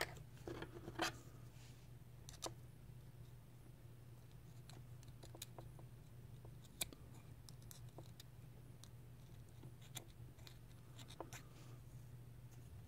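Faint scattered clicks and small scrapes of scissors and metal parts as cotton wick is worked into a rebuildable tank atomizer deck, a handful of separate ticks over a steady low hum.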